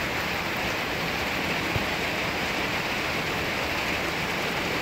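Heavy thunderstorm rain pouring down, a steady even hiss with no let-up.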